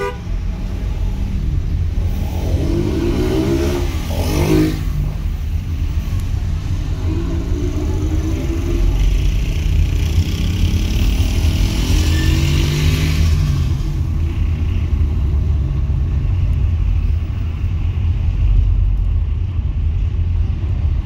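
Car driving on city streets: steady low road and wind rumble, with the engine note rising three times as the car accelerates. A brief whoosh about four and a half seconds in.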